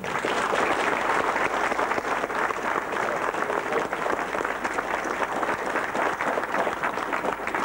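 Audience applauding: dense, steady clapping of many hands that starts suddenly and eases off at the end.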